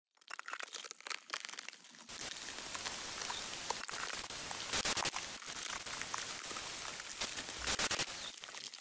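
Crackling sound effect under an animated logo intro: a few scattered crackles at first, then from about two seconds in a dense, steady crackle like crunching ice or static, with two louder bursts about five and eight seconds in.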